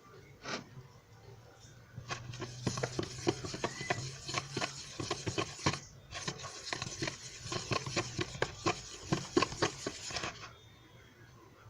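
A toothpaste-and-flour dough being mixed, giving a quick run of irregular sticky clicks and ticks that starts about two seconds in, breaks off briefly midway, and stops near the end.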